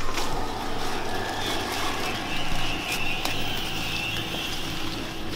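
Footsteps crunching through dry leaf litter with the rustle of a handheld camera, over a steady noisy rumble; the sound cuts off suddenly at the end.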